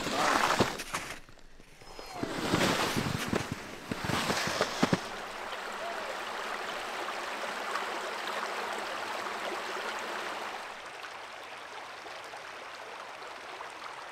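Footsteps and a loaded gear sled dragged through wet slush, in uneven bursts for about the first five seconds. Then the steady rush of a small open creek's running water.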